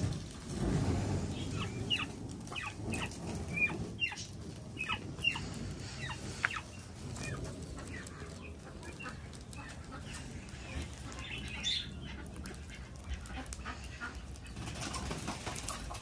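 Farm birds flapping their wings, with scattered short high calls, most of them in the first half.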